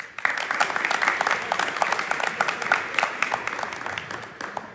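An audience applauding: a burst of many hands clapping that starts suddenly and dies away near the end.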